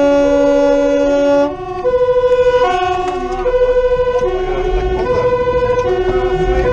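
Fire engine's two-tone siren alternating between a high and a low note, heard from inside the cab. For about the first second and a half, a steady air-horn blast sounds over it, then cuts off.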